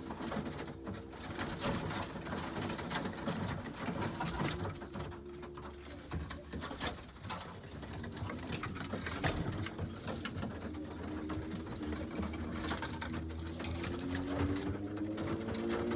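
Racing pigeon cooing in low, rolling tones, the coo rising in pitch near the end, with scattered sharp clicks and rustles.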